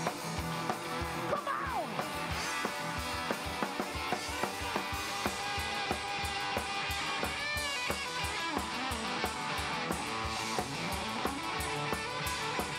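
Live rock band playing an instrumental passage: electric guitars over a steady drum-kit beat, with a lead line sliding through bent notes about a second in and again past the middle.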